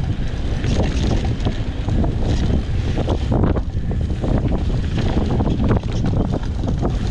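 Wind buffeting the microphone during a fast mountain-bike descent, a steady heavy rumble, with the bike clattering and knocking over rough trail throughout.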